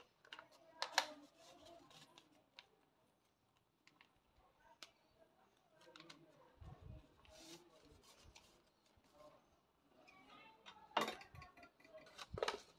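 Stiff paper crinkling and rustling in the hands as a rolled paper pencil cone is handled and pressed, with scattered sharp crackles, the loudest about a second in and twice near the end.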